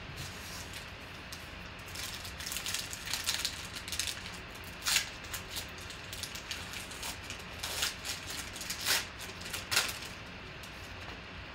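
Foil trading-card pack being torn open and its wrapper crinkled in the hands: a run of irregular crackles that starts about two seconds in and dies away shortly before the end.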